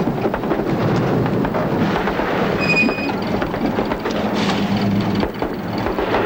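Military truck rumbling and rattling over a dirt road, with a short high squeal about three seconds in.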